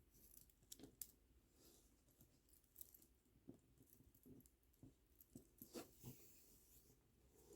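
Near silence with faint scattered clicks and rustles of plastic beads and string being handled while the beads are restrung.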